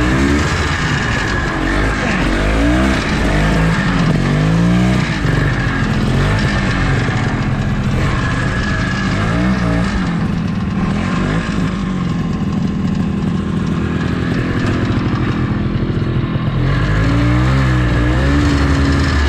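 Snowmobile engine running and revving up and down repeatedly, its pitch rising and falling every second or two.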